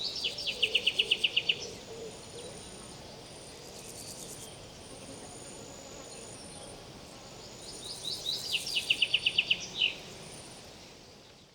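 A songbird sings two phrases, about seven seconds apart. Each phrase has a few quick descending notes running into a fast trill of about ten notes. Over them runs a steady, high-pitched insect buzz that breaks off and resumes, and everything fades out near the end.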